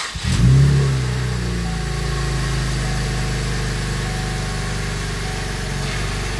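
2014 Chevrolet Camaro's 3.6-litre V6 being started: it catches just as the starter stops, flares up in revs briefly, then settles into a steady idle.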